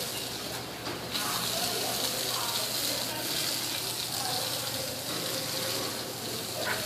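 Water running steadily from a garden hose onto a wet tiled floor, an even rushing hiss, with a faint low hum underneath.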